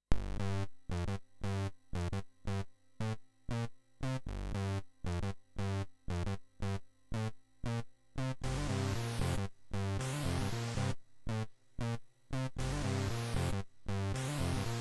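Commodore 64 SID chip music starting suddenly out of silence: short, choppy bass and lead notes in a quick steady beat. About eight seconds in, swooshing sweeps join the beat, twice.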